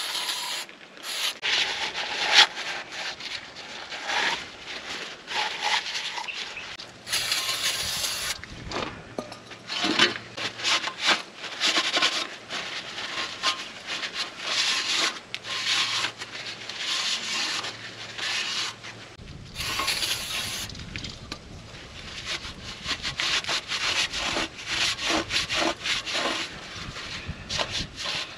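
Old grease being wiped and scrubbed out of an 80 Series Land Cruiser's front axle spindle by hand: irregular rubbing strokes throughout. Two short sprays of brake cleaner come about seven and twenty seconds in.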